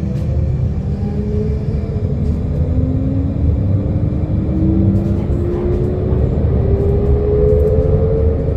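TSA TMF 35-44-4 electric traction motor of a Solaris Urbino 15LE electric bus whining as the bus accelerates, the whine climbing steadily in pitch, over a heavy low rumble.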